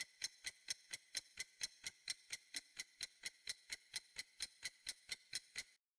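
Fast, even clock-style ticking, about four to five ticks a second, stopping shortly before the end.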